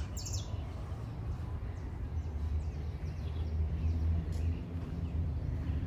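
Outdoor park ambience: a low steady rumble with faint, scattered bird chirps.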